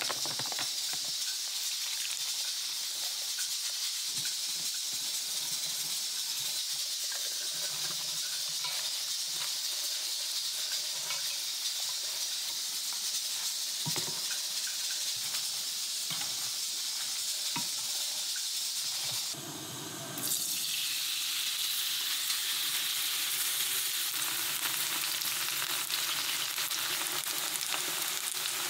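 Flour and chives being stirred into batter in a stainless steel bowl, with scattered clinks and scrapes over a steady hiss. About two-thirds of the way in the sound cuts briefly, then a buchujeon (Korean chive pancake) sizzles steadily as it fries in the pan.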